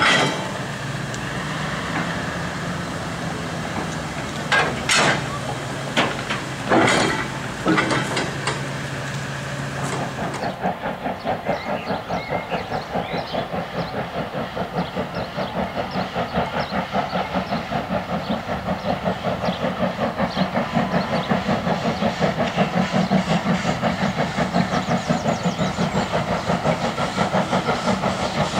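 A few sharp metallic clanks over a steady low hum in the first ten seconds. Then the rapid, even exhaust beats of an unseen steam locomotive working toward the line, growing steadily louder as it approaches.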